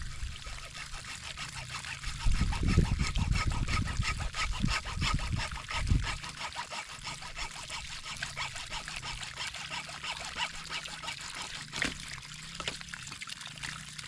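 Water trickling and pouring from a freshly cut buried water pipe that has not fully drained. A louder low rumble comes in about two seconds in and fades by about six seconds.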